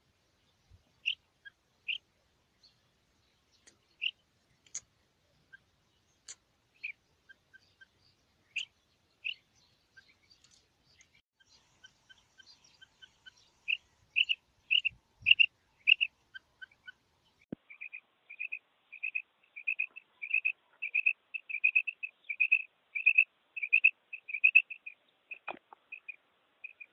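Female rain quail calling: short, high notes, scattered and spaced out at first, then from about halfway a quick, regular run of repeated notes, about two to three a second.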